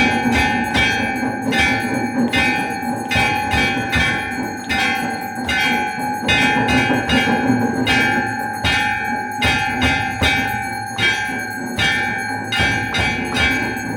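Temple bells rung during an aarti, struck over and over about two or three times a second, the ringing carrying on between strikes.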